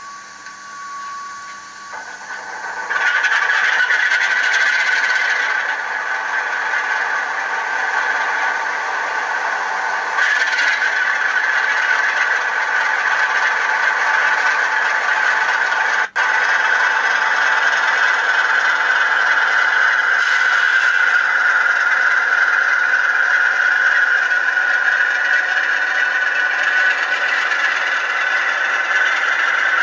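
LokSound v4 sound decoder in a Bachmann OO gauge Class 47 model playing the locomotive's diesel engine through its small speaker. A short steady tone comes first, then the engine sound builds about two to three seconds in and runs on steadily and rattly, with a brief dropout about halfway.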